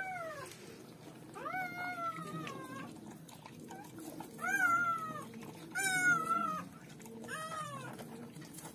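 Newborn German shepherd puppy squealing: a series of short, high, mewing cries, each falling in pitch, about one every second or so.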